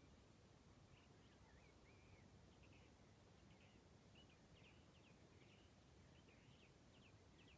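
Faint birdsong: short scattered chirps and little gliding whistled notes from small birds, over a low steady background rumble.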